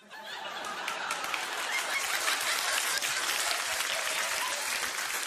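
Large audience applauding, swelling over the first second and then holding steady.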